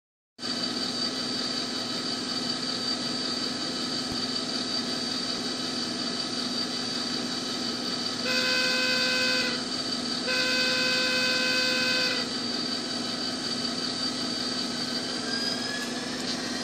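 Soundtraxx TSU-1000 sound decoder in a model EMD SDP-35 diesel locomotive playing a steady diesel idle, with two blasts of a Hancock air whistle about eight seconds in, a shorter one followed by a longer one. Near the end a rising whine begins.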